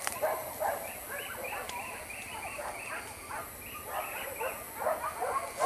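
A pack of hunting dogs barking and yelping in quick, overlapping calls, several a second.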